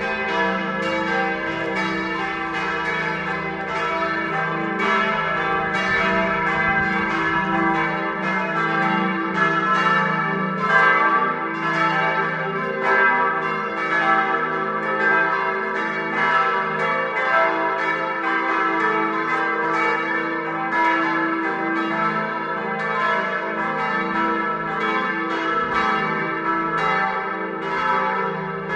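Full peal of four swinging church bells, tuned e' g' a' c'', ringing together in a steady stream of overlapping strikes with a long ringing hum between them.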